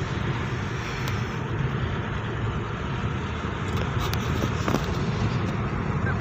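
Steady road and engine noise inside a moving car's cabin, mostly a low rumble.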